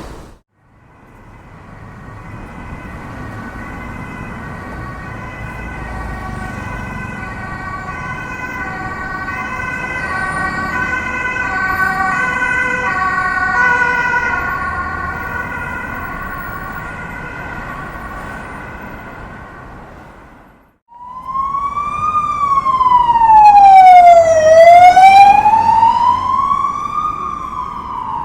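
Two-tone emergency vehicle siren alternating between two notes about once a second as it passes by, growing louder and then fading. After a sudden cut about 21 seconds in, a louder wailing siren glides slowly down and up in pitch.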